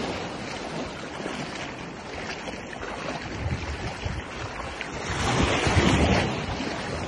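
Shallow surf washing at the water's edge, with wind buffeting the microphone; the wash grows louder for about a second, some five seconds in, then eases.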